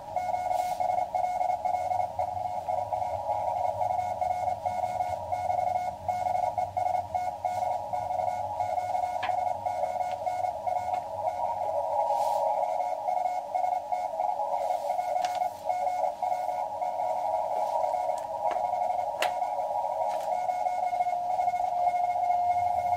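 HF transceiver receiving Morse (CW) through a narrow filter: a continuous band of static and hiss in the receiver's audio, with a steadier Morse tone standing out near the end.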